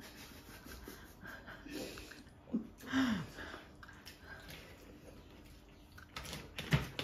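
Quiet eating by hand: fingers mixing and squeezing rice and fish curry on steel platters, with chewing, breathing and sniffling. A brief vocal sound falling in pitch comes about three seconds in, and louder voice sounds start near the end.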